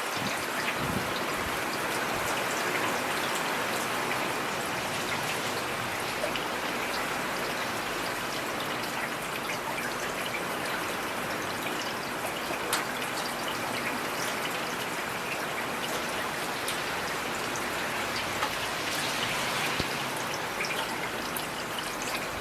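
Heavy rain falling steadily: a dense, even hiss, with scattered sharper drop hits.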